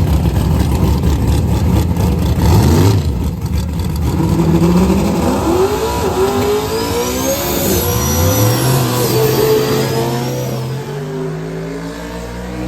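Car engine accelerating hard, its pitch climbing several times with drops in between, like shifts through the gears, then settling into a steady drone near the end. A faint high whine rises and falls along with it.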